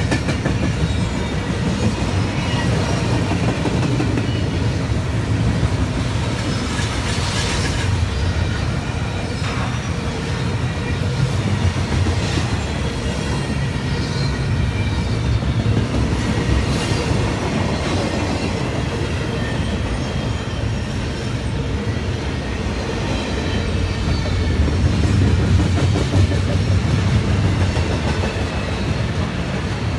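Double-stack container train of loaded well cars rolling past: a steady rumble and clatter of steel wheels on rail, with a faint high wheel squeal now and then, a little louder near the end.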